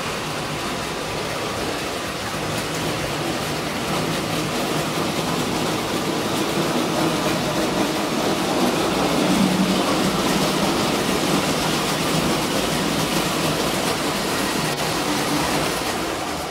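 Electric model train running around the layout's track, a steady rattling rumble of motor and wheels on the rails that grows louder toward the middle and eases a little after.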